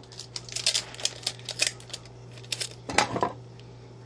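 Quick crackling clicks of clear sticky tape being handled, rolled and pressed on by hand, with a louder cluster about three seconds in, over a steady low hum.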